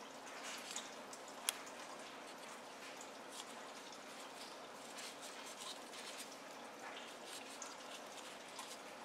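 Cloth rubbing over a small plastic toy as it is wiped clean, with soft scrapes and scattered light plastic clicks; one sharper click about one and a half seconds in.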